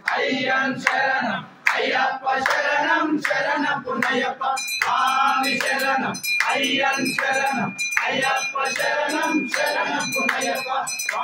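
Voices singing a devotional aarti (harathi) song during the camphor-flame offering, with a small metal pooja bell ringing about three strokes a second; the bell's ringing tone holds steady from about halfway through.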